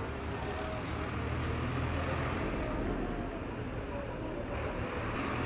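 Diesel engine running steadily with a low rumble, with a wash of general noise over it.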